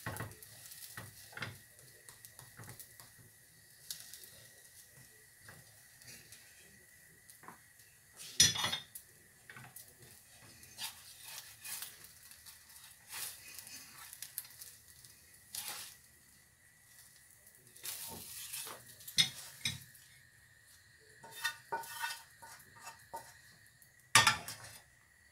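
Spatula scraping and tapping in a frying pan and a plate clinking, in scattered knocks with two louder clatters about eight seconds in and near the end, over a faint sizzle of the omelette frying. A faint steady high tone runs underneath.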